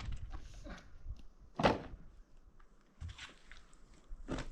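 A few separate knocks and thumps, the loudest about a second and a half in, with two fainter ones later.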